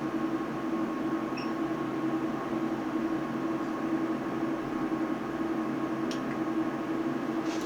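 Steady mechanical hum with a constant low tone, like equipment with a cooling fan running in a small room, with a couple of faint ticks near the end.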